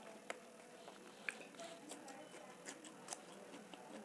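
Quiet close-up eating sounds of dal and rice eaten by hand: fingers gathering rice on a steel plate and soft wet mouth clicks while chewing, heard as scattered small ticks.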